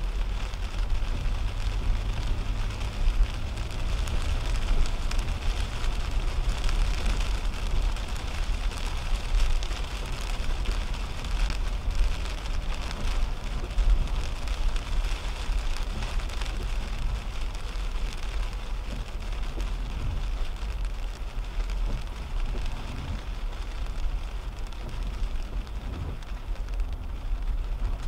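Rain hitting a 2010 Toyota Camry's windshield and roof, heard from inside the cabin while it drives on wet road. Beneath it runs a steady low rumble of road and tyre noise.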